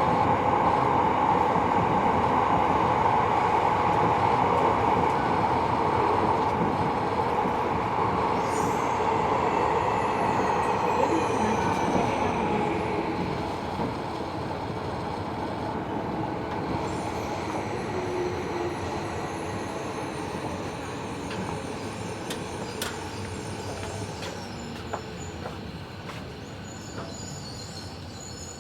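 Tobu 70000 series subway train heard from inside the car, its running noise a dense rumble that grows steadily quieter through the second half as the train slows. Thin high-pitched wheel squeal comes in about a third of the way through and again from the middle on.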